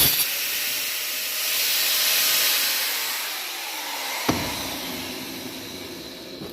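Angle grinder cutting through a car suspension ball joint: a loud, steady hissing cut with one sharp knock about four seconds in, stopping at the end.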